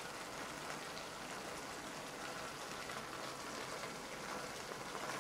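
Faint, steady sizzling hiss from a can of ration food heating over a burning fuel tab.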